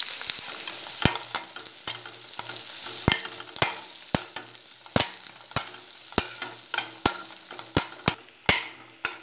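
Sliced shallots, curry leaves and dried red chillies sizzling in hot oil in a stainless-steel kadai, with a steel spatula scraping and knocking against the pan about twice a second as they are stirred. The sizzle thins out near the end.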